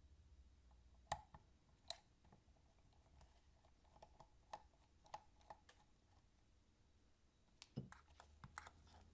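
Faint, scattered small clicks and taps from a precision screwdriver working the screws of a portable cassette player's plastic case, with a slightly louder knock about eight seconds in.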